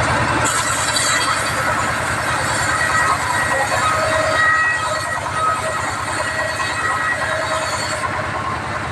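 Band sawmill running steadily, with a low, even motor pulse underneath and thin whining tones that come and go from about three seconds in.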